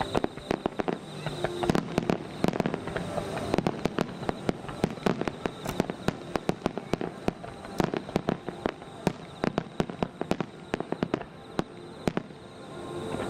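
Fireworks barrage of a Japanese star mine, heard from far off: shells bursting in quick succession, a rapid, irregular string of bangs and crackles, several a second.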